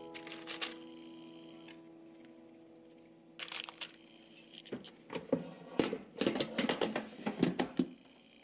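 Bagels being handled into a parchment-lined air fryer basket: crinkling parchment and light knocks, then a busy run of quick clicks and rattles in the second half.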